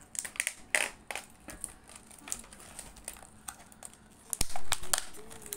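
Clear plastic blister packaging crackling and clicking in quick, uneven snaps as it is prised and bent open by hand to free a computer mouse, with a louder crunch about four and a half seconds in.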